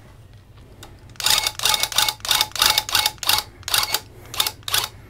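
Electric tufting gun running in short bursts, about three a second, as it punches yarn into the backing, starting about a second in.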